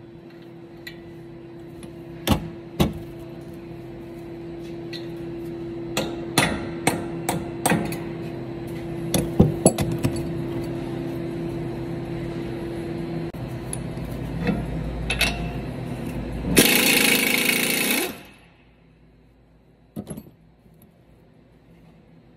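Hammer blows on the steering knuckle of a 2017 Ram 1500's front suspension during lower ball joint removal: a scattered series of sharp metallic knocks, bunched in the first ten seconds. About two-thirds of the way through, a loud rushing noise lasts about a second and a half.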